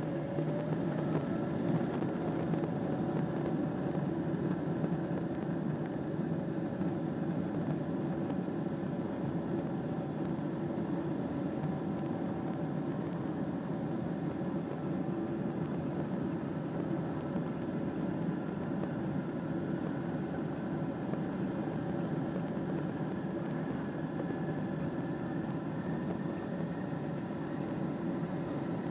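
Boeing 777-200's jet engines heard from inside the passenger cabin: a steady rumble and whine at low power as the airliner moves on the ground. A faint tone slides up just after the start, and another rises slowly near the end.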